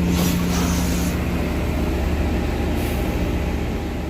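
Steady low mechanical drone of a motor running aboard a boat, with short bursts of hissing in the first second and again near three seconds in.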